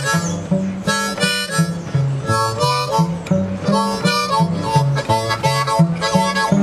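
Harmonica playing bluesy chords and phrases over a cello walking bass line, the low notes stepping about three times a second, in an improvised duet.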